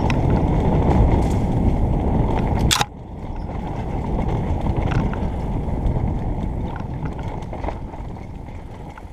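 Mountain bike rolling down a dirt forest trail: tyre rumble and wind noise on a helmet-mounted camera. One sharp clack comes about three seconds in, with a sudden drop in the rumble, which then fades gradually as the bike slows.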